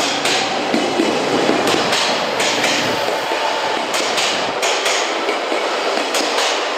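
Electric commuter train rolling along the platform, its wheels clacking irregularly over rail joints above a steady rumble. A faint motor whine rises slightly in pitch early on, then fades.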